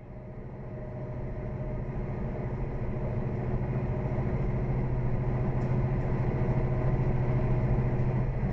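Steady drone of a semi-truck's diesel engine with road noise, heard from inside the cab at highway speed, fading in over the first couple of seconds.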